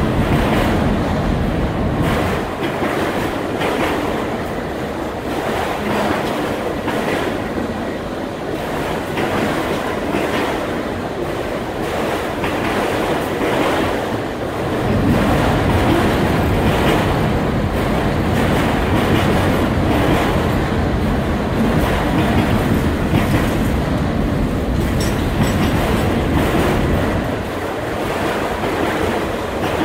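Autorack freight cars rolling past close by: a steady loud rumble of steel wheels on rail with a regular clickety-clack as the wheels cross rail joints, the low rumble growing heavier about halfway through.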